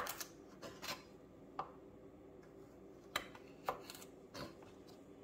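Chef's knives cutting carrots on plastic cutting boards: irregular sharp clicks and taps, about eight in all and the first the loudest, as the blades slide forward through the carrot and meet the board. The cuts are slicing the rounded sides off a carrot to square it.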